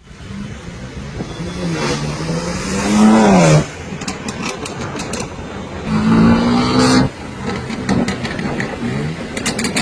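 BMW M4's twin-turbo straight-six revved hard twice, each rev climbing and then cutting off sharply, followed each time by a run of exhaust pops and crackles. The first rev peaks about three seconds in, the second about six to seven seconds in.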